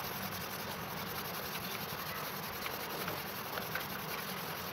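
A steel knife blade being rubbed by hand in quick strokes along its length, making a steady rubbing noise, as part of cleaning the rust off it.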